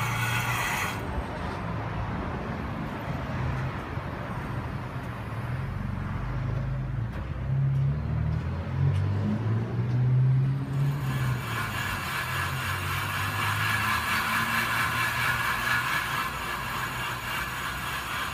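Car driving with a low, wavering drone from a bad wheel bearing, loudest in the middle. A higher hiss of road noise joins it from about eleven seconds in.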